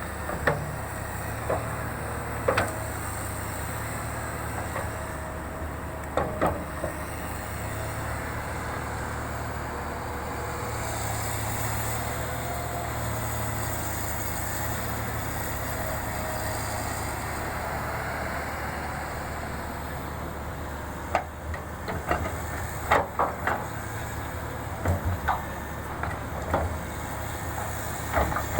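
Heavy diesel engine of a hydraulic excavator running steadily, with sharp knocks heard a few times early on and in a cluster near the end.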